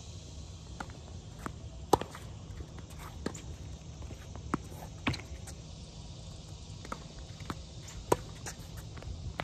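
Tennis balls being struck with rackets and bouncing on a hard court: a series of sharp pops a second or so apart. The loudest come about two seconds in and again near the end, with softer shoe and ball sounds on the court between them.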